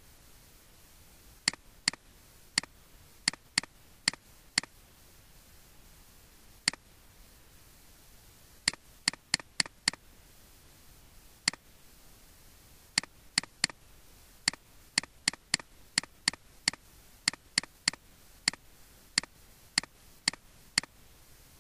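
Computer mouse button clicking: single sharp clicks at irregular intervals, often two or three in quick succession, over a faint background hiss.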